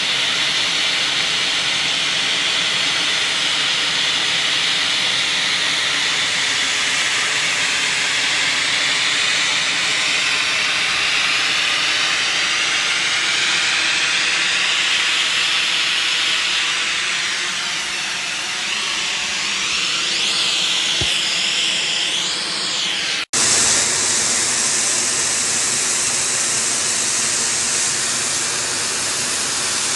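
Lance-type snowmaking guns spraying, a loud steady hiss of compressed air and water whose tone slowly sweeps up and down. The hiss drops out for an instant about 23 seconds in, then carries on.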